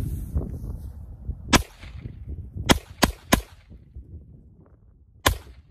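Glock 17 9mm pistol fired five times: a single shot about a second and a half in, three quick shots in a row, then one last shot near the end, each with a short echo.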